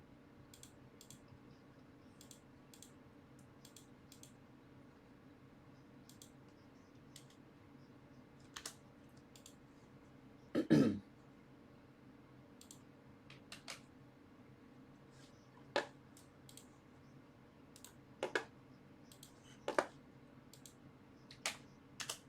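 Sparse light clicks and taps over a faint steady hum, with one louder throat clear about eleven seconds in.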